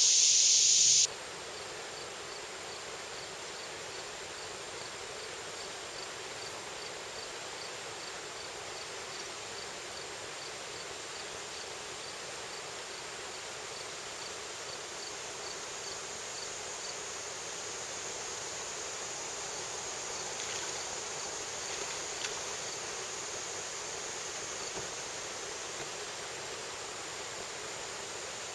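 Outdoor creekside ambience with an insect chirping in an even pulse, about two or three chirps a second, through the first half. It opens with a second of loud high hissing that cuts off suddenly, and a single light tap sounds about two-thirds of the way through.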